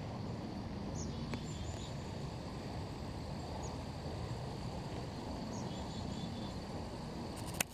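Field ambience of crickets or other insects trilling steadily, with a few short high chirps and a low, even background noise. A sharp click comes near the end.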